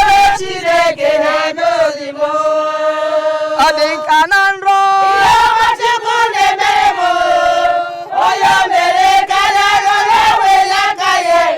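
Voices singing and chanting together, with long held notes that waver and break every second or so.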